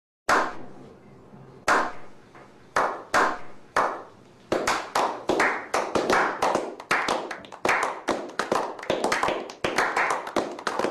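A small group of people slow-clapping. Single hand claps come a second or so apart at first, then more hands join about halfway through and the clapping quickens to a steady run of about three claps a second.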